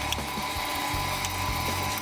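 A roll of tape being handled and peeled at its end, with a few small clicks and crackles.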